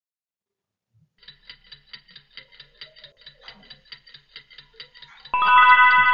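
Timer sound effect: rapid, even clock ticking at about six ticks a second, then about a second before the end a loud alarm ring cuts in, marking that the time is up.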